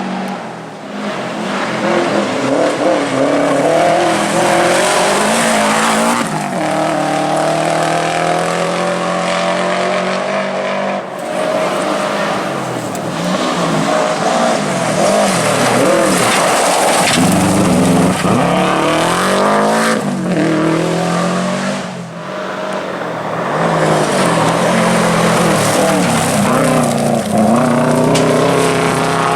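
Subaru WRX rally car's turbocharged flat-four engine being driven hard, its pitch rising with each gear and dropping at the shifts, with tyre noise from skidding. The sound breaks off and jumps abruptly a few times, as from cuts between different passes of the car.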